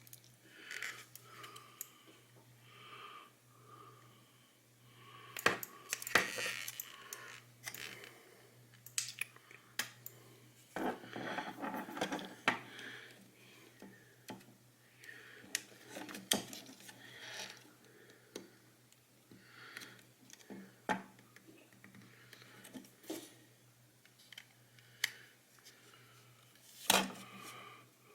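Scattered small plastic clicks, taps and scraping from the parts of a Delux M618 PLUS vertical mouse being handled and pried during disassembly, with a couple of longer rustling stretches, over a faint steady hum.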